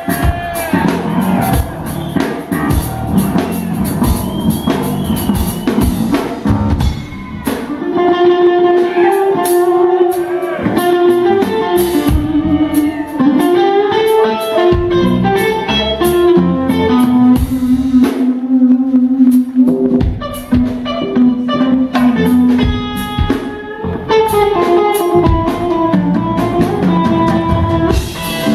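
Live rock band playing an instrumental: a distorted electric guitar carries the lead melody in long sustained notes that bend and slide in pitch, one held for several seconds past the middle, over bass guitar and a drum kit.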